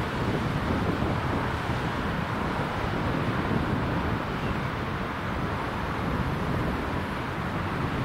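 Wind buffeting the microphone, a steady rushing noise, with cars driving past on the road.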